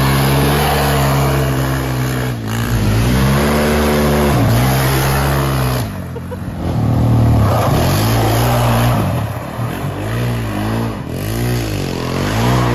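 Quad bike engine revving hard through drifts, its pitch climbing and falling several times. The revs drop off briefly about two, six and eleven seconds in, with quicker rev blips near the end.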